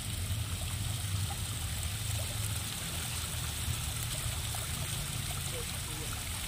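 Water trickling steadily down a rock-wall garden waterfall into a shallow pond, over a steady low rumble.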